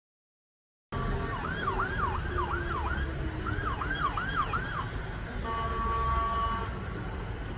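Emergency vehicle siren on a fast yelp, in two runs of rapid up-and-down sweeps, followed by a steady horn blast of about a second, over the low rumble of road traffic.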